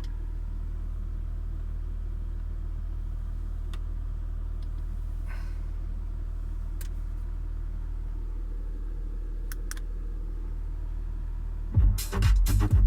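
Steady low hum of unchanging pitch and level from an Audi's aftermarket multimedia audio system, the unwanted noise of its sound fault. Near the end, loud electronic dance music starts playing over it.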